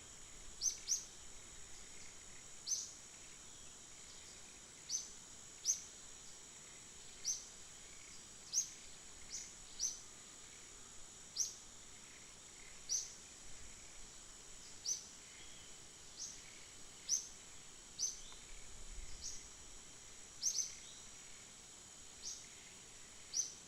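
A small bird repeating a short, high chirp about once a second, over a steady high-pitched insect drone.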